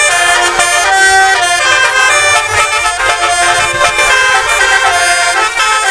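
Bus 'telolet' horn, a set of tuned air horns, playing a quick tune of shifting, reedy notes.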